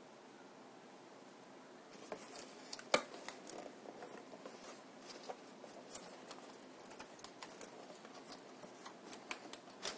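Packaging handled by hand as a heatsink is pulled out of its box: irregular rustling and clicking that starts about two seconds in, with one sharp click about a second later.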